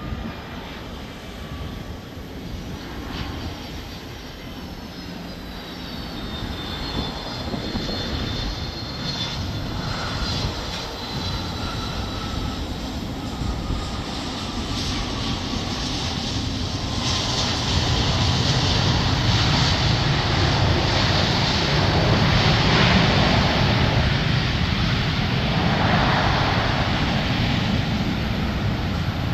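Boeing 757 jet engines on landing: a whine that slides down in pitch as the airliner flares and passes, then a louder, broad rushing roar that builds after touchdown on the landing roll.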